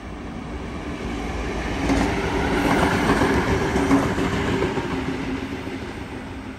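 Two-car diesel railcar set running through the station without stopping: engine hum and wheels on the rails, growing to its loudest as it passes about two to four seconds in, then fading as it draws away.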